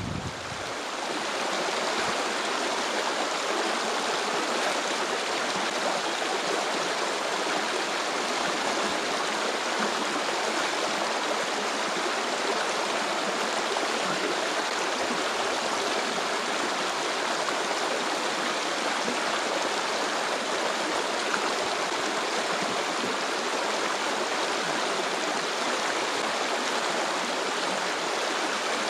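Stream flowing: a steady, unbroken rush of running water.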